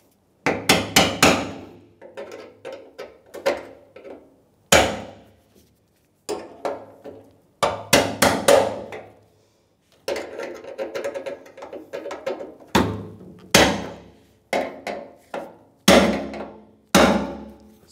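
Hammer striking a brass punch against the fuel pump module's metal retainer ring: a series of sharp taps, some in quick runs of several, each ringing briefly. The taps drive the new retainer ring around and down to lock it over its tabs and seat the pump.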